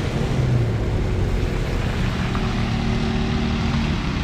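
Snowblower engine running steadily: a small petrol engine's even drone with a low hum underneath.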